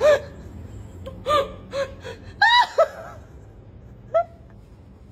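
A toddler's short, high-pitched wordless vocal sounds, about six of them, each well under a second, with the loudest about two and a half seconds in.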